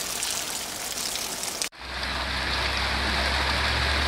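Small hail and rain falling on gravel, pine needles and pavement: a steady hiss dotted with light ticks. Partway through it cuts off abruptly and a different recording starts, a denser steady hiss of falling hail and rain with a low rumble underneath.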